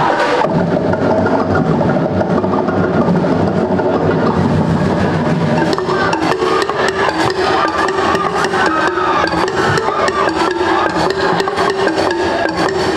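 Loud percussion-driven dance music: drums and wooden knocks in a fast beat, with a steady held tone coming in about halfway through.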